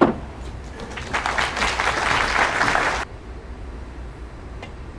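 A sharp click of snooker balls at the start, then about two seconds of audience applause for a potted pink, which cuts off suddenly.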